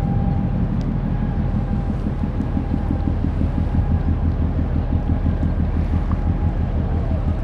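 Wind buffeting the microphone: an unsteady low rumbling flutter, with a faint steady hum beneath it.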